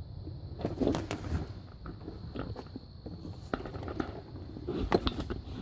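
Scattered light knocks, clicks and scrapes of handling, a few louder ones about a second in and again near the end.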